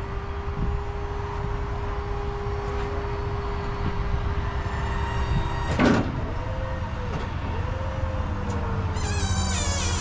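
Electric-driven hydraulic pump of a tracked aerial lift whining steadily as the boom is worked, to test a newly crimped hydraulic hose fitting. About six seconds in there is a brief loud burst of noise, then the whine bends up and down in pitch twice, and a higher whine sets in near the end.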